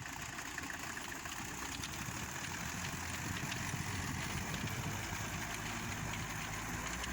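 A small engine, likely the one powering the homemade rotary tiller, running steadily with no change in speed.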